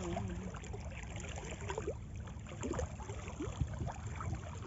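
Small lake ripples lapping faintly at the shallow shoreline, over a steady low rumble.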